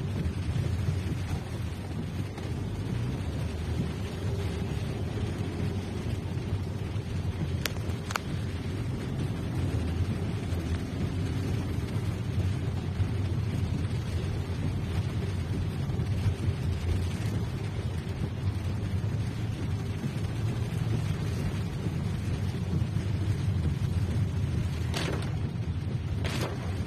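Steady low rumble of a car's engine and tyres heard from inside the cabin while driving in traffic, with a few brief clicks about eight seconds in and near the end.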